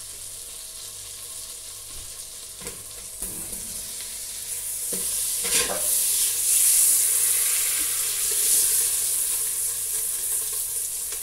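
Halved cep bolete mushrooms sizzling in hot olive oil and butter in a stainless steel pot. The pot is lifted and tilted, and the sizzle grows louder from about three seconds in, with a few light knocks.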